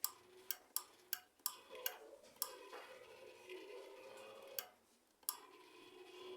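Microwave control board's small buzzer clicking on its own, about nine sharp irregular clicks with a faint hum between them. This is the fault sound, which the repairer puts down to a bad contact or a damaged filter capacitor on the board.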